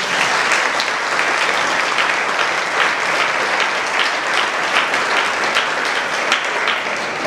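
Audience applauding: many people clapping in a dense, steady patter, easing off slightly near the end.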